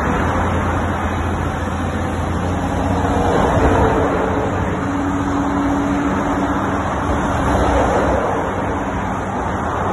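Diesel engine of a Caterpillar 321 zero-tail-swing excavator running steadily as the machine swings and works its clamshell bucket, with a continuous rush of motorway traffic behind it. A low steady hum underlies the sound, and a higher tone comes in around the middle.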